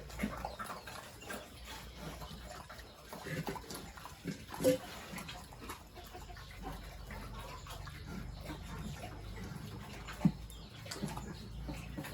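Farm animals on a pig farm making scattered short calls, with one louder call about four and a half seconds in and a sharp knock near ten seconds.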